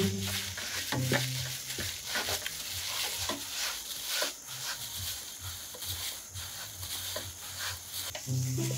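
A utensil stirring and scraping in a mixing bowl, with irregular taps and clinks over a steady hiss.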